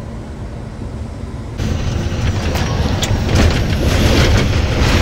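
BharatBenz truck heard from inside the cab while driving: a steady low engine and road rumble. About a second and a half in it turns louder and rougher, with irregular rattling knocks as the truck runs over a river bridge.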